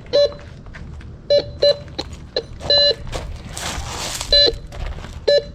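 Bounty Hunter Tracker IV metal detector sounding short beeps at one steady pitch, about six at irregular intervals with one held a little longer midway, as its coil passes over metal. A brief hiss comes about three and a half seconds in.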